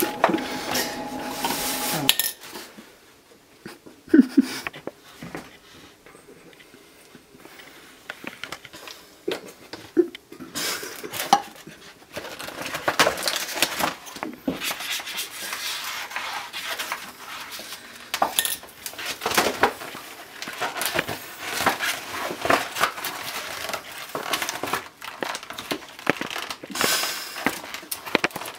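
Paper envelope and papers being handled on a counter: rustling and crinkling with scattered small knocks and clicks, quieter for several seconds early on and busier in the second half.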